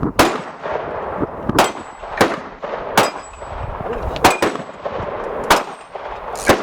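About seven gunshots, spaced unevenly, at an outdoor range. Several are followed by a short high metallic ring as bullets strike a steel target.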